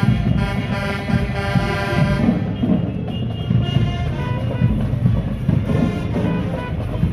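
High school marching band playing: the brass section holds a full chord for about two seconds, then plays thinner lines over continuous drumline beats.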